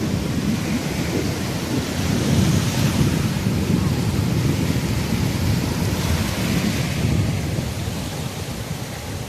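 Wind buffeting the microphone at the seashore, a steady low rumble with sea surf behind it, easing a little near the end.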